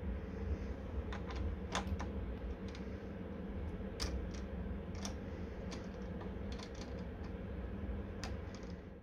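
Light, irregular clicks and taps of small metal parts handled in the fingers: a steel lever handle and a brass sleeve knocking together. A steady low hum runs underneath.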